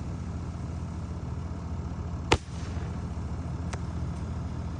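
Consumer firework going off: one sharp loud bang about halfway through, then a fainter pop over a second later, over a steady low rumble.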